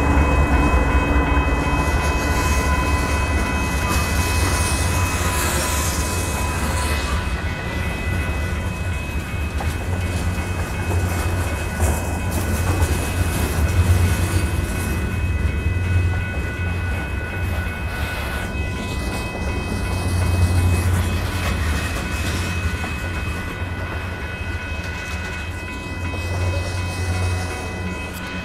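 Union Pacific manifest freight train rolling past: the steady heavy low rumble of the diesel locomotives and freight cars on the rails, with a clatter of wheels and thin steady high tones above it.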